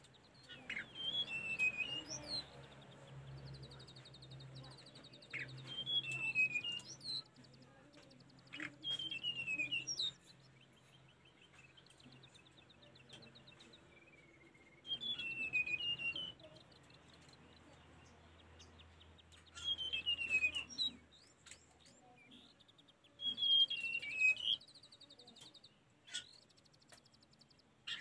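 Hill blue flycatcher singing: six short, sweet warbled phrases with a fast trill in some, each about a second and a half long and coming every few seconds.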